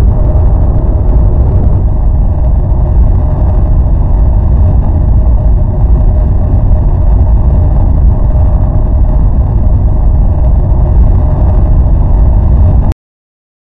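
Loud, steady low rumble of a car travelling along a road, cutting off suddenly near the end.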